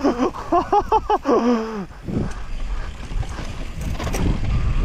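A rider's voice gives a rapid, wobbling "oh-oh-oh" cry that tails off in a falling glide about two seconds in. After that, wind buffets the helmet or bike camera's microphone, mixed with the rumble and rattle of a mountain bike running down a rooty downhill trail.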